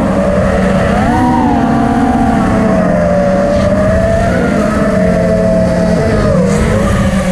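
Racing quadcopter's electric motors and propellers whining, heard from the onboard camera. The pitch rises about a second in, then slowly eases down and wobbles near the end as the throttle changes. A rumble of noise runs underneath.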